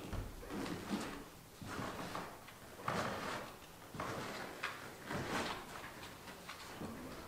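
Scattered soft knocks and rustles of objects being handled and people moving about, several separate short noises with quieter gaps between them.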